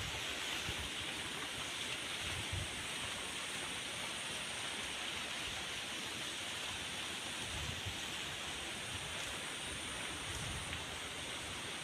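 Steady, even hiss of running water in a small spring-fed stream.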